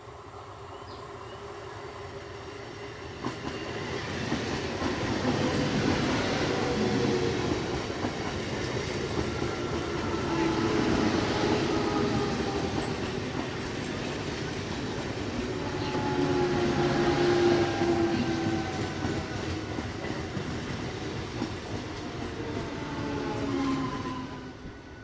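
A Medha-equipped electric multiple unit local train approaches and runs past, its wheels clattering over the rails. Several times a whine slides down in pitch, and the sound falls away suddenly near the end.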